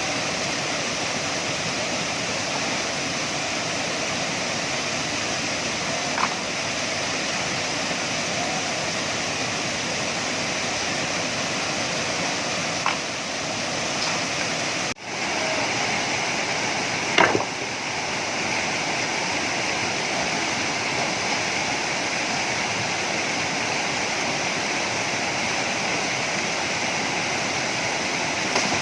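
Steady rushing water of a waterfall and stream, with a few short knocks, the loudest about two-thirds of the way through. The sound drops out for an instant about halfway.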